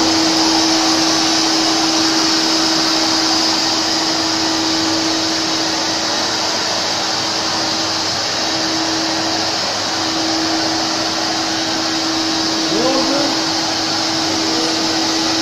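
Powerwash SC2A electric walk-behind floor scrubber-dryer running steadily, its motors giving a loud, even whirring noise with a constant hum underneath.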